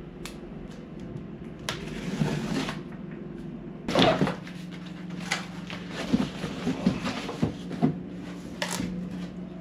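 Cardboard shipping box being opened by hand: rustling and scraping of the flaps in a few bursts, then a run of small knocks and clicks as the contents are handled, over a steady low hum.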